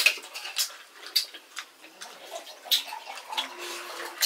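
Irregular light clicks and clinks of a meal being eaten, dishes and utensils knocking now and then.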